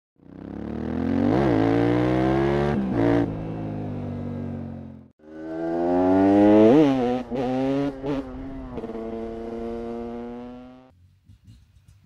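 Beta RR 300 single-cylinder two-stroke enduro engine revving in two passes: each opens with a quick sharp blip of the throttle, then holds a steady high rev. The first pass cuts off suddenly about five seconds in; the second fades away near the end.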